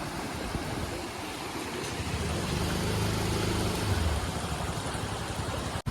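Steady hiss of heavy rain and water on a flooded road. A motor vehicle's engine hums low for about two seconds in the middle.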